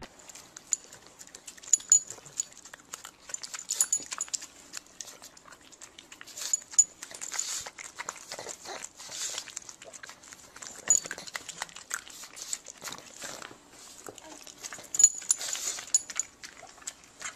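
A dog sneezing again and again in short, sharp bursts, the loudest about two, seven, eleven and fifteen seconds in.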